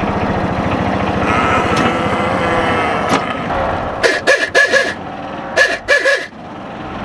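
A vehicle engine running steadily under way. Between about four and six seconds in, several short, loud bursts sound over it.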